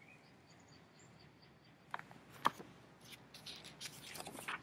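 Pages of a picture book being turned and handled: two sharp paper snaps about two seconds in, then a run of papery rustles near the end.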